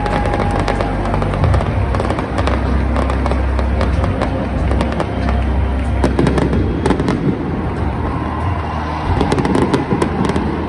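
Stadium fireworks going off: a rapid run of sharp cracks and bangs, coming thickest in clusters around the middle and near the end, over steady bass-heavy music.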